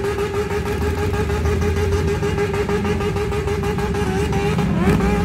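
Harley-Davidson V-twin motorcycles running as they ride slowly past one after another, with a steady pulsing rumble and a short rev near the end.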